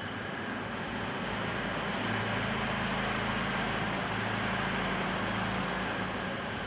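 A steady low mechanical hum with a noisy hiss, growing over the first two seconds and then holding level.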